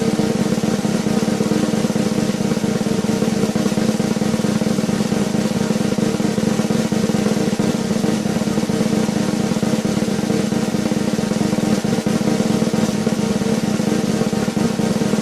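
Sustained drum roll, a fast continuous rattle held at an even level throughout, with no accent or cymbal crash.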